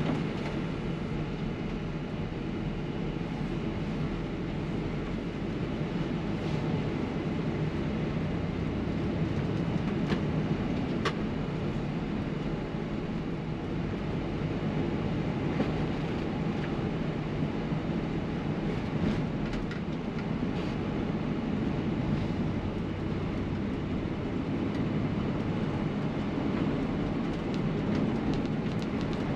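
Intercity coach driving, heard from inside the cabin: a steady low rumble of engine and road noise, with a few faint clicks and rattles.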